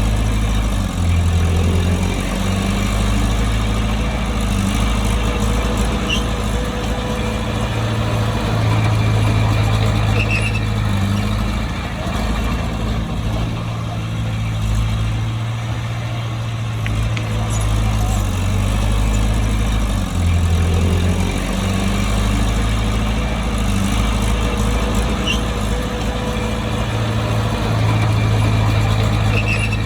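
Bulldozer's diesel engine running steadily, its low drone shifting in pitch and level now and then.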